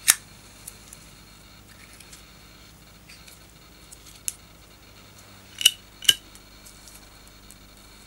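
Sharp metallic clicks of an old petrol lighter's hinged metal lid and striker being worked as it is opened and lit. One loud snap comes right at the start, then a few faint ticks, then two loud ringing clinks about half a second apart a little before six seconds in.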